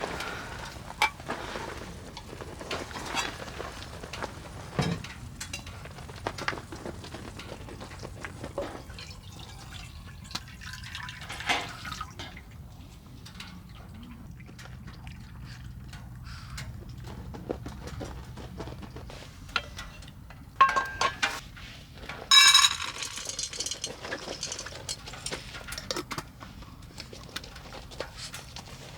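Camp dishes and liquid being handled: scattered small taps and clicks, liquid sounds, and a bright ringing clink of a cup or pot about three-quarters of the way through.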